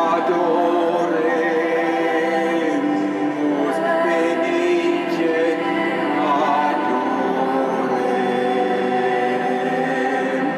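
A man singing a slow song to a musical accompaniment, in long held notes with some wavering vibrato.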